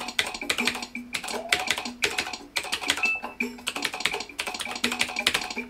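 Rapid typing on a computer keyboard: a fast, uneven stream of clacking keystrokes, several a second, as words are typed out at speed in a typing game.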